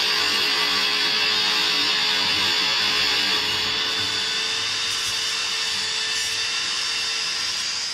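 Makita GA9020 230 mm angle grinder running under load, its disc cutting through a brick: a steady high whine over a continuous gritty cutting noise.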